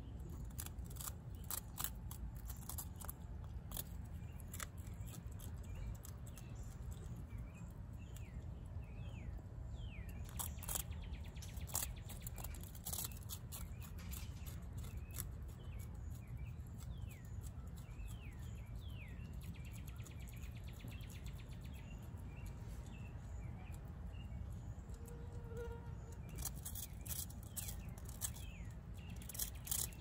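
Opossum chewing crunchy food: irregular sharp crunches and clicks, bunched about ten seconds in and again near the end. Birds chirp in the background with short falling calls.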